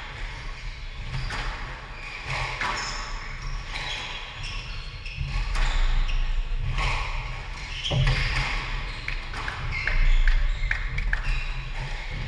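A squash rally: the ball cracks sharply off rackets and court walls about once a second, with shoes thudding and squeaking on the wooden court floor.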